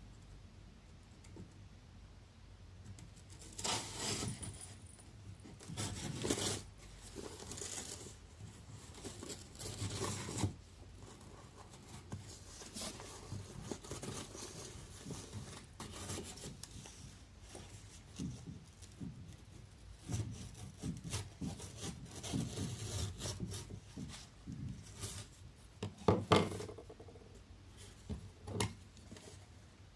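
Irregular rubbing and scraping on wood and paper, with short louder strokes every few seconds, as work goes on at a torn paper sliding door (shoji). A sharper knock about 26 seconds in is the loudest sound.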